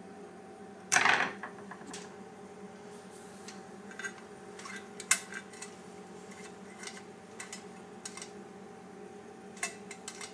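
Clicks and light metal knocks from fingers handling the sheet-metal cover of a Honeywell motorised valve head on copper pipes. There is a loud knock about a second in and a sharp click about five seconds in, over a steady low hum.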